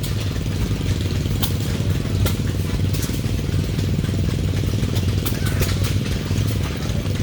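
An engine running steadily at idle, a low, even rumble with a few light clicks over it.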